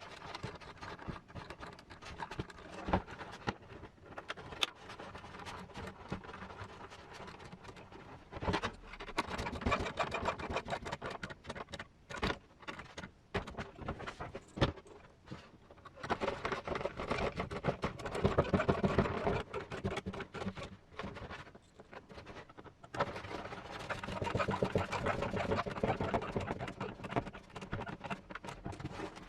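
Small screws being driven by hand into a plastic RC truck body and grill: rapid scratchy grinding as the threads cut into the plastic, with clicks and taps as parts and tools are handled.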